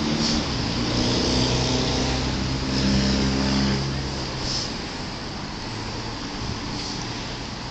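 City street traffic: cars driving through an intersection, engine hum and tyre noise, loudest in the first four seconds and then easing to a steadier, quieter rumble.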